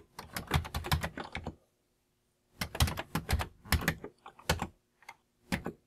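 Keystrokes on a Commodore home computer's keyboard: a quick run of typing, a pause of about a second, then a second run and a few single key presses. The typing enters the LOAD command for COBOL 64 and the SYS command that starts it.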